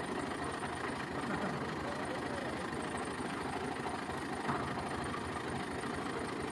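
Al Ghazi tractor's diesel engine idling steadily, with faint voices in the background and a light knock about four and a half seconds in.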